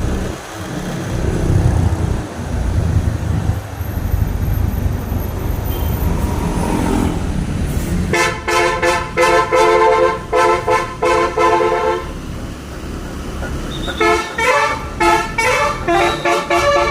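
A tour bus's multi-trumpet telolet horn, a Basuri horn, over a low engine and traffic rumble. About halfway through it sounds a chord in quick rhythmic blasts, stops briefly, then comes back near the end playing a changing melody.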